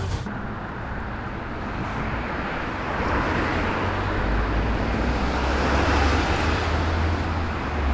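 Red double-decker bus driving along a street: engine rumble and road noise that grow louder from about three seconds in, peaking near six seconds.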